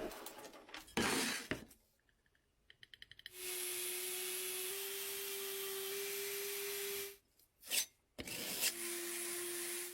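Handheld power tool running in two stretches of several seconds, a steady motor hum under a hiss of abrasion on metal. A quick run of clicks comes just before the first stretch, and short scraping noises come in the first couple of seconds.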